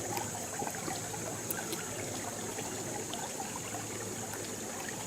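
Creek water trickling over rocks, with scattered small drips and splashes.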